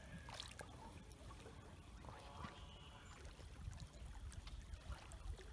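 Faint trickle of river water around a drifting canoe, over a steady low rumble.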